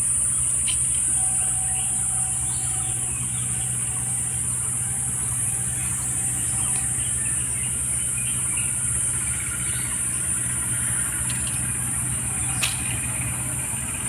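Steady high-pitched drone of insects in the undergrowth, over a steady low engine hum, with a few scattered bird chirps and a single sharp click near the end.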